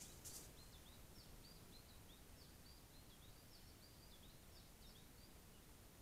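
Faint bird song over steady hiss: a string of short, high, hooked notes, two or three a second, that stops near the end. A brief rustle comes at the very start.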